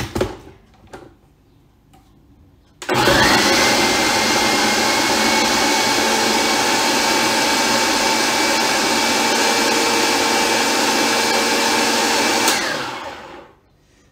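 Food processor motor running for about ten seconds, chopping a salmon, egg and breadcrumb mix: it spins up to a steady whine about three seconds in and winds down near the end. A couple of short clicks come before it starts.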